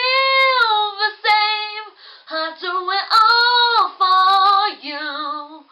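A boy singing unaccompanied in a high voice: a held note that rises at the start, then several sung phrases with short breaks and long sustained notes.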